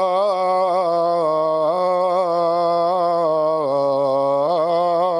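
Muezzin's call to prayer (adhan): a man's voice chanting the closing "Allahu akbar" in long, drawn-out melismatic notes. About three and a half seconds in, the melody dips lower, then rises again.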